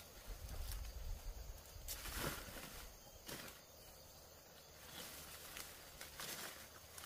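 Irregular light rustles and knocks, about half a dozen, scattered over a faint outdoor background, with a low rumble in the first couple of seconds.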